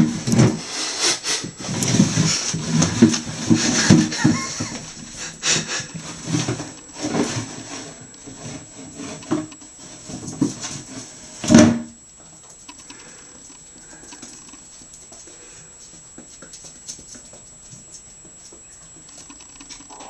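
Upturned plastic washing-up bowl scraping and knocking over vinyl floor tiles as a ferret shoves it along from underneath, with one loud bump a little past halfway. After that, only faint scuffling.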